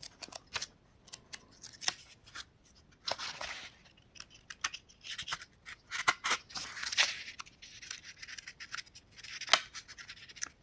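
Paper pages of a book being handled and turned: crisp ticks and snaps from the paper, with a few soft swishes as pages slide over one another.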